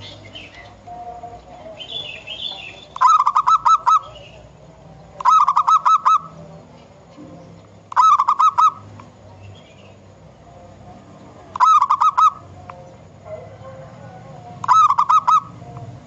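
Zebra dove cooing: five short bouts, each a quick run of about five or six staccato notes lasting under a second, repeated about every three seconds.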